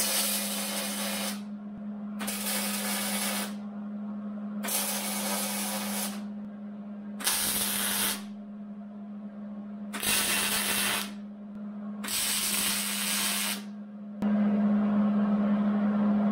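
Arc welder laying tack welds: six separate bursts of hiss, each about a second long, with short pauses between them.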